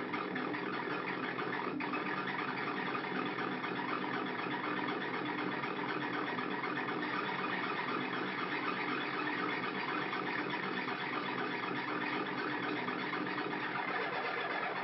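Handmade Arduino synthesizer running Mozzi code, putting out a steady, dense electronic drone as its knobs are touched.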